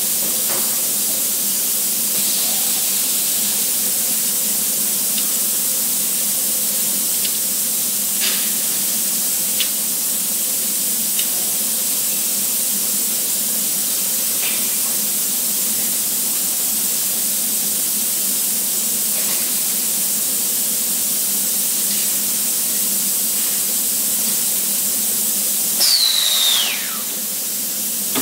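Steady hissing from robot welding-shop machinery, with a few faint metallic clicks. Near the end a high whistle falls sharply in pitch and the hiss eases off.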